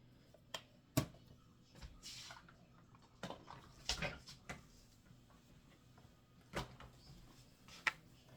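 Scattered sharp knocks and clicks, about seven in all, of containers and tools being handled and set down during soap making, with a brief soft rustle about two seconds in.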